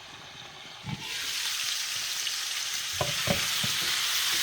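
Food frying in a cooking pot: the sizzle jumps up suddenly about a second in, just after a knock, and then keeps going strongly. Two light knocks come near three seconds in.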